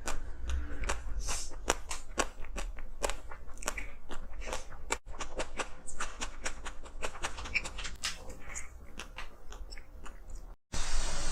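A person biting and chewing hard frozen ice, with a dense run of sharp crunches. Near the end the sound cuts out for a moment and a steady hiss follows.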